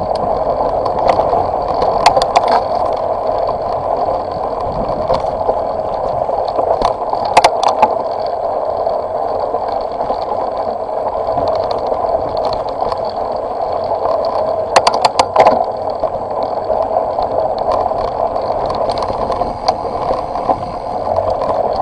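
Steady rushing wind noise on the microphone of a rider descending a rutted dirt track, with rattling and a few sharp knocks from bumps, the clearest about 2, 7 and 15 seconds in.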